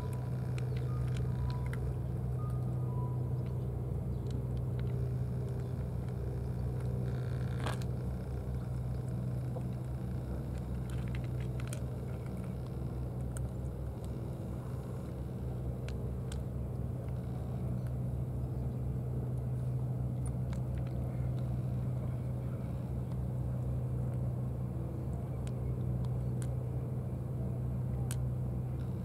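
A steady low mechanical hum that runs without change, with a single sharp click about eight seconds in.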